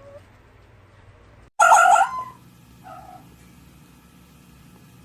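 Fox calling: one loud, high call about a second and a half in, lasting about half a second, then a shorter, fainter call about a second later, over a low steady hum.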